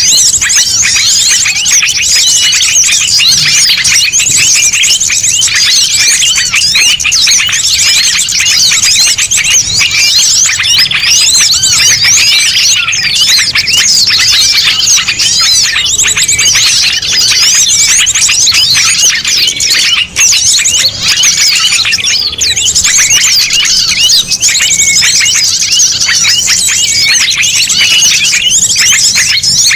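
Recorded lure of many small songbirds chirping and twittering at once in a dense, loud mixed chorus, with no pauses, of the kind played to attract small birds.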